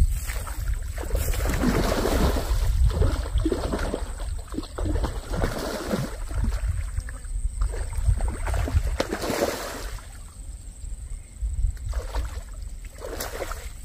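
A hooked rohu of about three to four kilos thrashing and splashing at the surface as it is hauled in to the bank, in irregular bursts. A steady low wind rumble on the microphone runs under it.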